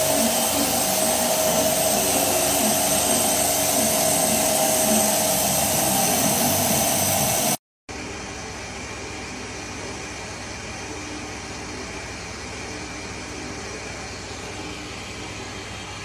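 Camel milking machine running: a loud, steady vacuum hiss with a constant high whine. It cuts off about seven and a half seconds in, and after a short gap a quieter steady machine hum comes in over milk swirling in a stainless steel milk tank.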